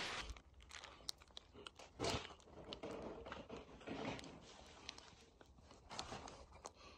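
A plastic piping bag of adhesive crinkling faintly in the hand as it is squeezed to lay a bead of glue along a plaster moulding, in irregular bursts with a few sharp clicks.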